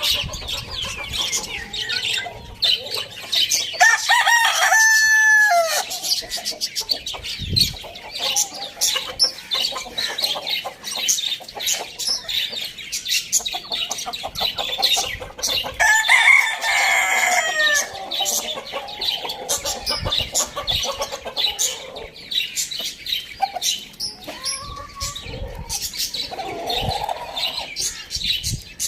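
Roosters crowing: one long crow a few seconds in and another about halfway through, over continuous high chirping and clucking of other birds.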